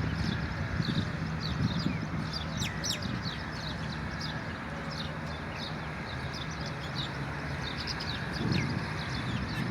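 Small birds in a tree chirping: many short, high chirps, overlapping and irregular, over a steady low rumble.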